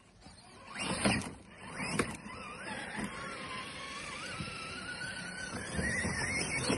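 Electric motor of a Traxxas TRX-4 RC crawler whining as it climbs, a thin wavering tone that rises in pitch toward the end. A few knocks and rustles of tyres on leaves and snow come in the first couple of seconds.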